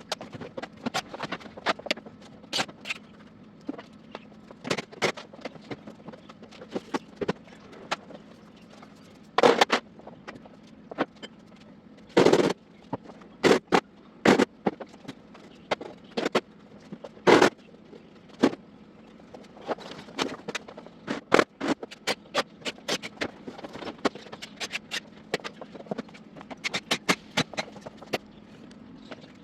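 Irregular knocks, clicks and clatters of repair work on a washing machine, with a few much louder bangs, over a faint steady hum.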